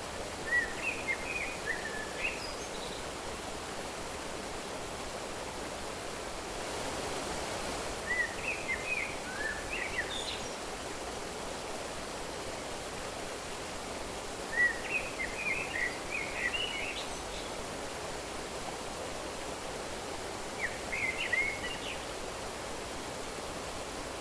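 Nature ambience: a songbird sings short phrases of quick chirping notes four times, about every five to six seconds, over a steady outdoor hiss that swells briefly about seven seconds in.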